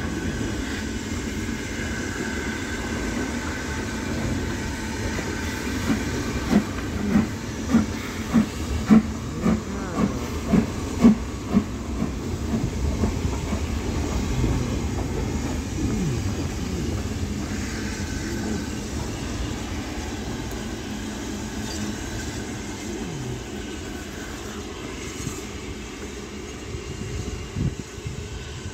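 Steam train with a rake of mineral wagons rolling across a railway bridge: a steady rumble and hiss, with a run of evenly spaced wheel clacks, a little under two a second, around the middle.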